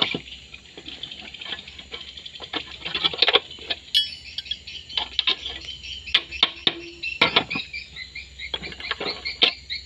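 Thin steel rebar being bent into a square stirrup around steel pins on a wooden jig with a hand bending bar: irregular metallic clinks and knocks as the rod and bar strike the pins and the table.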